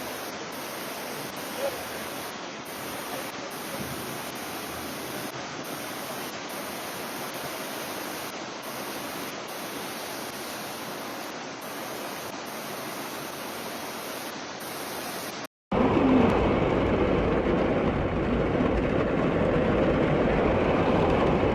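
A steady rush of water. About fifteen seconds in it cuts off and gives way to a louder, deeper rushing noise.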